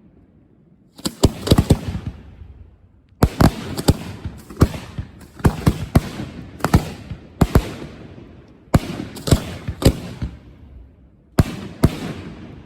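Aerial firework shells bursting in a rapid finale barrage: clusters of sharp bangs, each trailing off in an echoing rumble. The bangs start about a second in and come in bunches every second or so, with a short lull near the end before a last pair.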